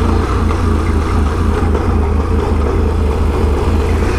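Can-Am Renegade 1000 ATV's V-twin engine running steadily, a constant low drone.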